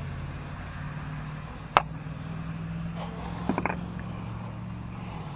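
Handling noises: a sharp click a little under two seconds in, then a quick cluster of light clicks and taps, over a steady low hum.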